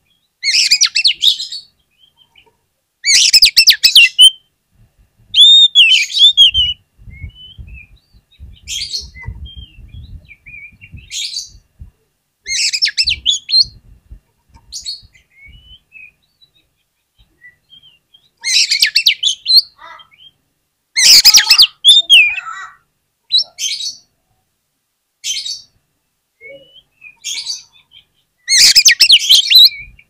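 Oriental magpie-robin (kacer) singing: loud bursts of varied, sliding phrases every few seconds, with short single notes in between. Soft low knocks sound under the song through the middle stretch.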